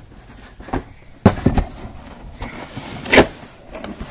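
Cardboard laptop box being opened and handled: two knocks just over a second in and a louder one about three seconds in, with scraping and rustling between.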